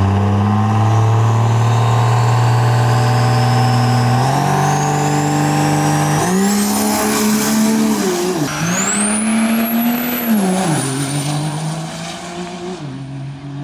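Diesel drag-racing pickup's engine held at steady revs on the starting line, stepping up about four seconds in, then launching hard about six seconds in with a high whistle rising over the engine. The engine note dips briefly twice as it shifts gears, then fades as the truck runs away down the strip.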